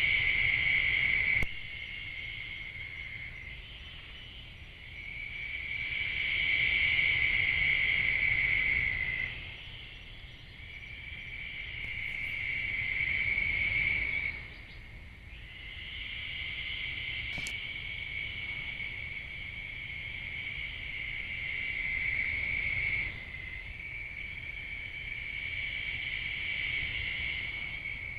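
A night chorus of insects trilling continuously at a high pitch, swelling and fading in waves every few seconds and dropping off abruptly a few times.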